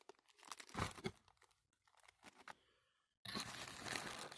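Plastic accessory bags crinkling and rustling in short irregular bouts as they are handled and opened. From about three seconds in, a steady hiss starts suddenly.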